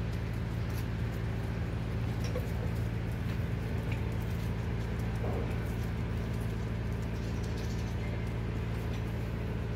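A steady low mechanical hum runs throughout. Over it, faint scattered patter and small clicks come from puppies eating off the ground.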